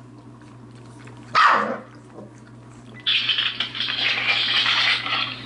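A puppy gives a single short bark that falls in pitch, about a second and a half in. About three seconds in, a loud, even rushing noise starts and lasts until near the end.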